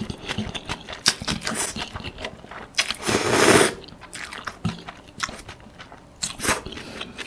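Close-miked chewing and biting of pad thai rice noodles and bean sprouts, with wet, crunchy clicks throughout. About three seconds in comes the loudest sound, a long slurp of noodles.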